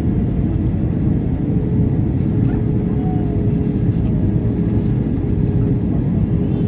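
Steady jet engine and airflow noise inside the cabin of an Airbus A320, with a steady hum joining about a second and a half in.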